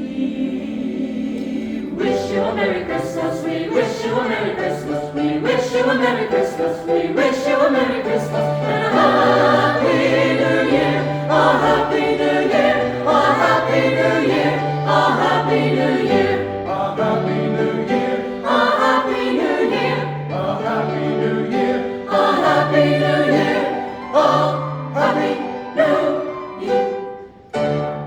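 Choir singing a Christmas piece in several parts, over a steady low bass line, with the phrases breaking off near the end.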